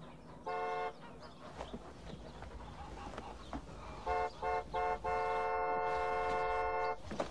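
A vehicle horn honking: one short blast, then three quick toots and a long blast of about two seconds.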